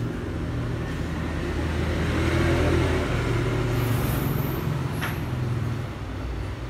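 Steady low rumble like road traffic, louder about two to three seconds in, with a short click about five seconds in.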